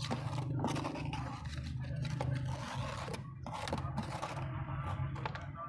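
Metal trowel scraping and spreading wet cement across a tile mould in repeated strokes, over a steady low hum.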